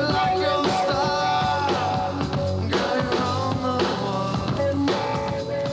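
Rock song playing: a band with drums and guitars, and a sung vocal line.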